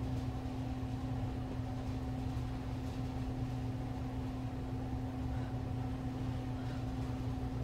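Steady low machine hum with one constant pitched tone, even in level throughout.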